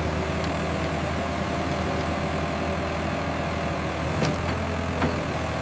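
Heavy vehicle engine running steadily at a low, even hum. A couple of short knocks come near the end.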